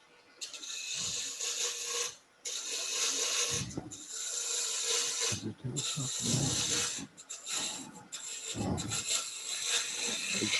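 A woodturning gouge cuts into a spinning wooden pepper-grinder blank on a lathe in repeated hissing passes, each about a second or so long with short breaks between them. The lathe's steady hum runs beneath.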